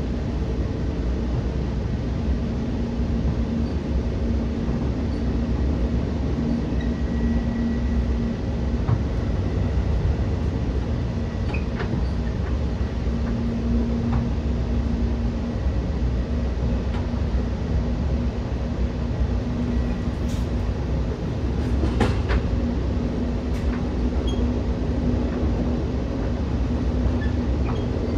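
Steady rumble of a Metra bi-level commuter coach running along the track, heard from inside the car, with a constant hum and occasional sharp clicks and knocks.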